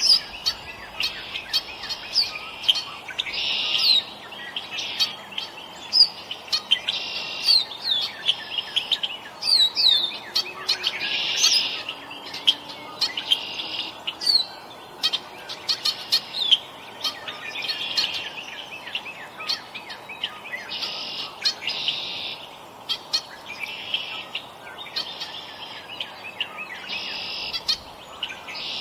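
Small songbirds chirping and calling: a buzzy call repeated about every one and a half to two seconds, with many quick high chirps in between.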